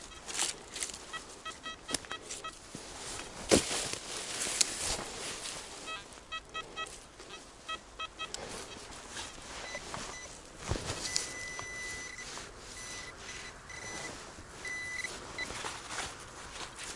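XP Deus metal detector sounding short, rapidly repeated target beeps, then longer held tones in the second half, over scattered knocks and scrapes against soil.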